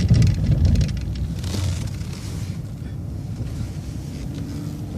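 Transit bus driving, heard from the driver's seat: a steady low engine and road rumble, louder in the first second, with a brief hiss about a second and a half in.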